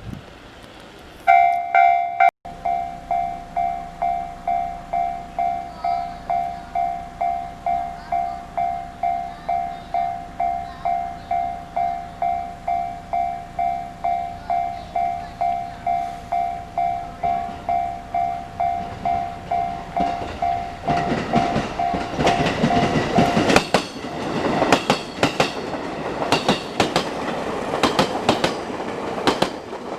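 Japanese level-crossing alarm starts about a second in: an electronic bell tone pulsing about one and a half times a second. Near the end a train passes over the crossing with loud rattling and clatter of wheels on the rails, and the alarm tone stops while the train is still going by.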